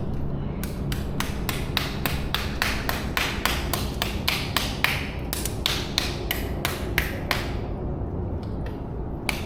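Rapid, even clicking, about four or five sharp ticks a second, over a low steady hum.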